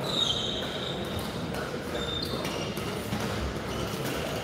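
Badminton hall ambience with scattered short, high squeaks of court shoes on the floor.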